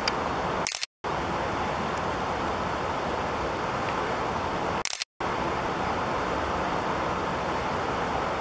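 Steady rushing background noise, the kind of hiss a camera's microphone picks up at a night-sky recording, that drops out to dead silence twice for a fraction of a second, about a second in and again about five seconds in. Each dropout is preceded by a brief high-pitched hiss or click.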